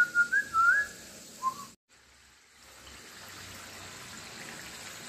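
A wavering whistled tune for about the first second, one short whistled note a moment later, then after a brief break the steady sizzle of samosas deep-frying in hot oil in a steel kadai.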